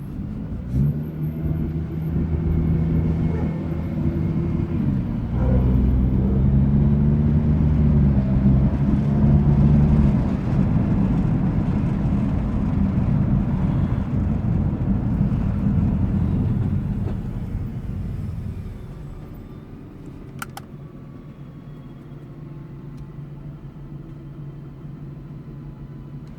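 Nissan GT-R's twin-turbo V6 pulling under load while driving, with a step in pitch about five seconds in like a gear change. The engine then eases off and settles to a lower, steady drone.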